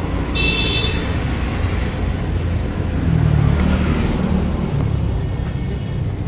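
Steady low rumble of nearby motor traffic, with a brief high-pitched tone about half a second in.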